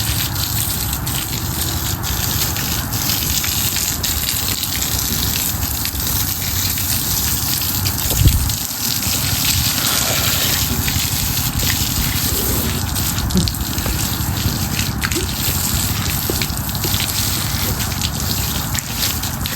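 Steady rushing noise, with a brief low thump about eight seconds in.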